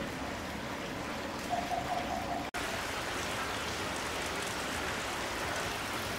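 Steady background hiss. About a second and a half in, a short run of five quick chirp-like pulses at one pitch. The sound cuts out for an instant at about two and a half seconds.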